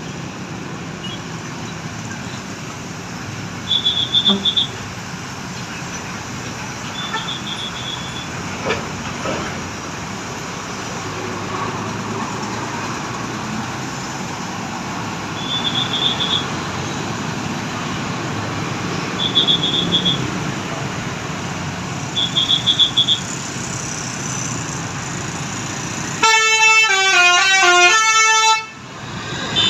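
Road traffic running steadily, then near the end a bus's Basuri telolet horn plays a loud multi-note tune of stepped pitches for about two and a half seconds and breaks off.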